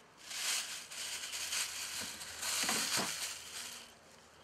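Crinkly rustling and scraping as an ignition coil is worked out of its spark-plug well in the engine cover, in two stretches with a short break about two seconds in.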